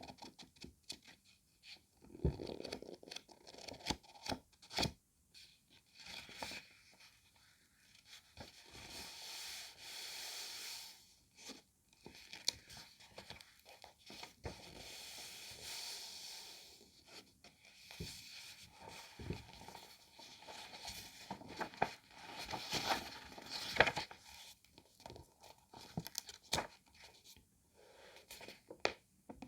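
Paper book pages being leafed through: a series of papery swishes as the pages turn, a second or two each, with crinkling and short sharp taps in between.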